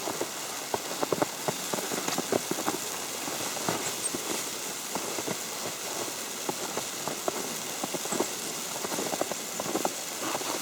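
Falling snow pattering on an umbrella: many irregular light ticks over a steady hiss.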